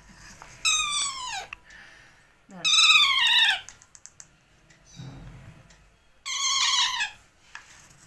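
Young green parakeet chick giving three loud food-begging calls, each under a second long and falling in pitch.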